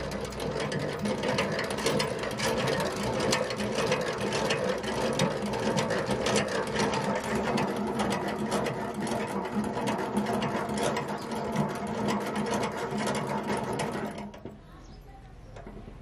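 Hand-cranked centrifugal honey extractor spinning comb frames to fling the honey out, its crank gearing making a fast, even rattle over a steady hum. The rattle stops about fourteen seconds in.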